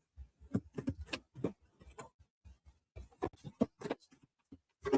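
Tarot cards being shuffled and handled: a run of short, irregular soft clicks and taps as the cards slap together.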